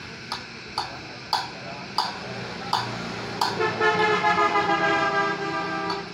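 Ratchet wrench clicking at the clutch bolts of a CD-70 motorcycle, single sharp clicks about every half second. From about halfway in, a vehicle horn sounds steadily for over two seconds and is the loudest sound.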